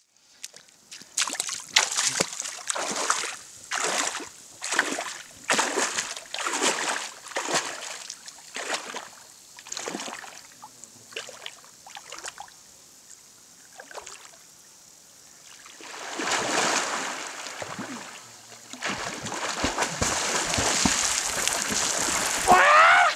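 Water splashing in an even rhythm, about one splash a second, dying away after about ten seconds; later a steady rush of water.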